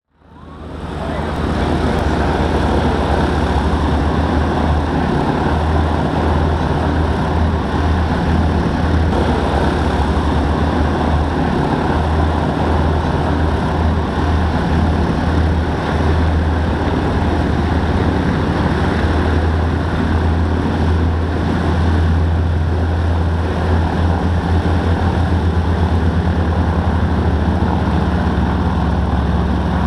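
Propeller-driven warbird piston engines running on the ramp: a loud, steady, deep drone that fades in over the first second or so.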